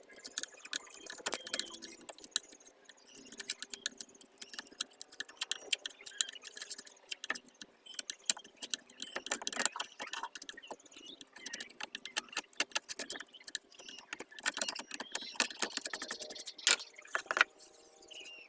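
Small tools working wood, making a dense, irregular run of clicks, taps and short scrapes, as when a wood patch is fitted and worked in.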